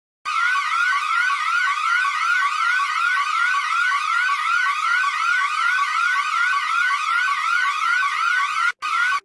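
Emergency alert siren tone: a rapid rising sweep repeated about three times a second, starting suddenly out of silence and breaking off briefly near the end.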